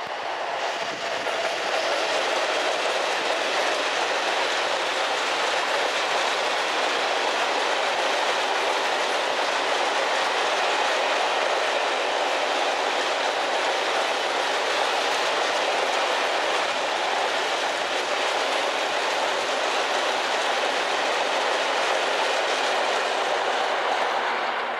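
Long ČD Cargo freight train of hopper wagons, hauled by electric locomotive 163.030, rolling past close by: a steady rolling noise of steel wheels on the rails that builds over the first second or two and then holds at an even level.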